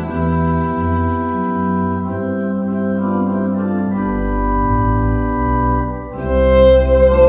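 A church console organ plays sustained chords, with a deep pedal bass note coming in about four seconds in. After a brief dip near the end, a violin comes back in over the organ.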